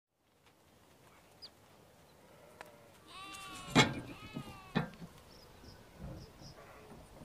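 A cat meowing twice, two drawn-out calls about a second apart. A sharp knock comes at the end of the first call, the loudest sound, and another follows just after the second.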